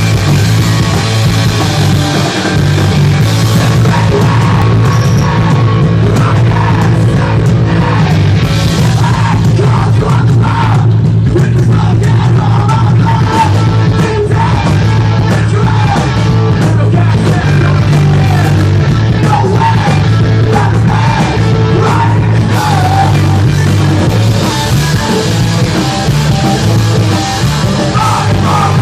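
Rock band playing live, loud and steady throughout.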